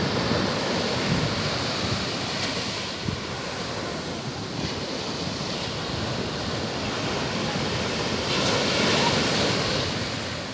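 Ocean waves breaking and washing on the shore, a continuous rush that swells louder about eight seconds in.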